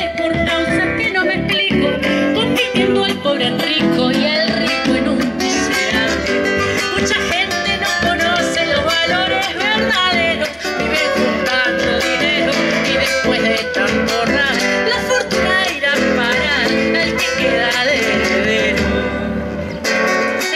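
Live acoustic band playing: a flute carries the melody over an acoustic guitar and a hand drum.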